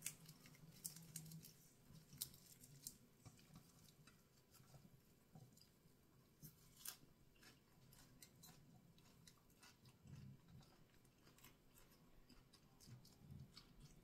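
Faint chewing and mouth sounds of a person eating leaf-wrapped bites of grilled-pork salad, with scattered small clicks, most in the first half.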